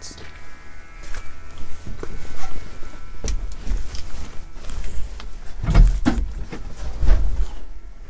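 A person climbing up into the cab of a backhoe loader: a run of irregular knocks and thumps from steps, handholds and the cab door, with handling rumble, loudest in the second half.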